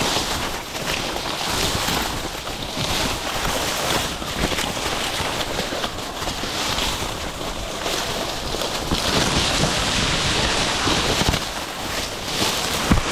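Continuous loud rustling and crackling of dry sugar cane leaves and stalks as someone pushes through dense cane, with some wind buffeting on the microphone.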